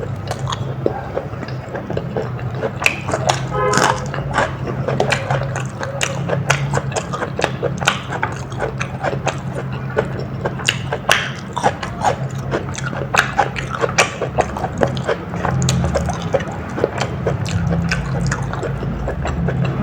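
Close-miked wet chewing and mouth sounds of a person eating soya biryani with raw mango: a dense run of small sticky clicks and smacks, over a steady low hum.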